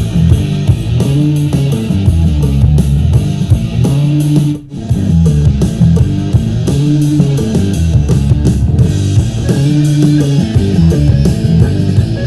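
Bass-heavy instrumental rock music with guitar and a steady drum beat, played back over a Huawei Sound Joy Bluetooth speaker in a sound test, with a brief break about four and a half seconds in.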